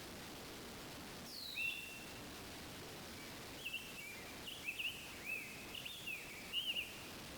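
A songbird singing: one whistled note that slides down in pitch, then after a pause a string of short chirping phrases, over a steady faint hiss of outdoor background noise.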